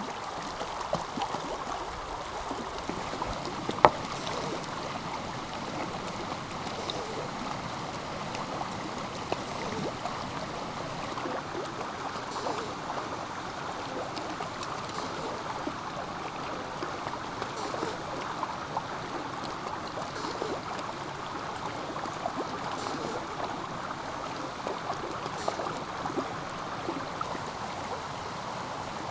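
Steady rush of a flowing stream, with one sharp click about four seconds in.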